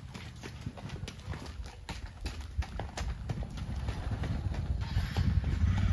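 Horse hooves striking packed dirt in a quick, even run of clip-clops as the horse is ridden at its ambling revaal gait. A motorcycle engine rumbles, growing louder over the last couple of seconds.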